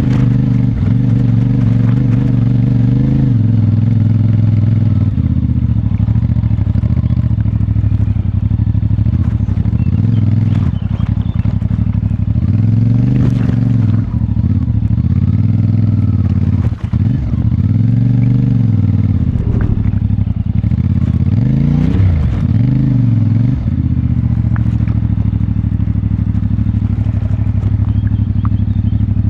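CFMoto 450MT's parallel-twin engine running at low revs through its stock exhaust, steady for most of the time, with a few quick throttle revs rising and falling about two-thirds of the way through. Occasional short knocks come through over the engine.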